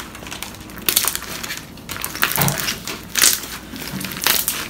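Slime with foam packing peanuts mixed in being kneaded and stretched by hand, crunching and crackling in irregular bursts as the foam pieces are squeezed.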